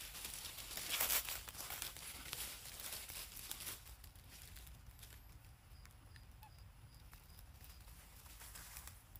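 Dry fallen leaves rustling and crackling in a close run of small bursts, loudest about a second in, dying away after about four seconds. In the quieter rest, a faint high peeping repeats several times.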